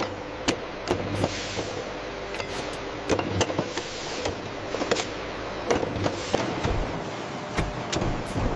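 Factory production-line machinery running with a steady noise and a low hum, broken by frequent irregular clicks and clinks, about two or three a second.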